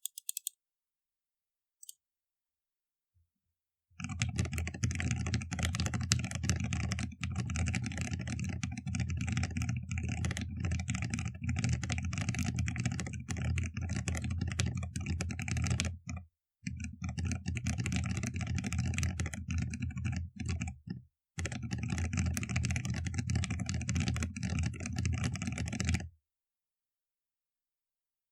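Fast typing on a mechanical keyboard with Gateron Box Ink Black V2 linear switches, lubed with Krytox 205g0 and filmed, under PBT MA-profile keycaps on a POM plate. A steady stream of rapid keystrokes starts about four seconds in, breaks off twice briefly, and stops a couple of seconds before the end.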